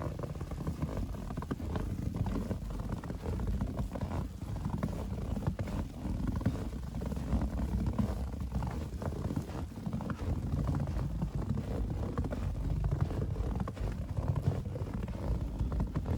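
Footsteps crunching in fresh powdery snow, over a steady low rumble of wind on the microphone.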